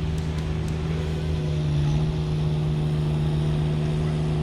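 A steady motor drone: a constant low hum whose pitch shifts slightly about a second and a half in.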